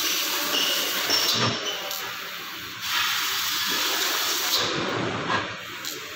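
CNC laser cutting machine cutting a metal sheet, a steady hiss of gas and spraying sparks from the cutting head. The hiss dips briefly about two seconds in, then comes back.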